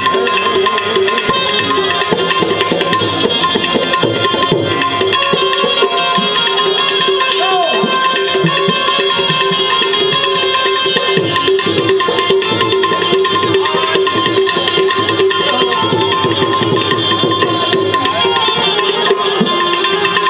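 Instrumental Gujarati bhajan music with no singing: tabla-style hand drums keep a steady rhythm under held melody notes.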